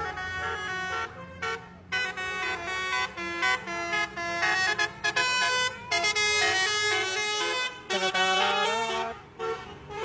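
Tour bus telolet horn, a set of musical air horns playing a quick tune of chord-like notes that change several times a second, with a few brief gaps between phrases.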